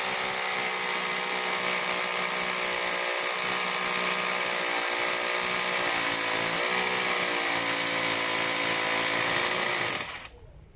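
Hanbo 920W rotary hammer drilling a hole into concrete, its motor running loud and steady under load, with a brief dip in pitch partway through, then stopping near the end as the hole is finished.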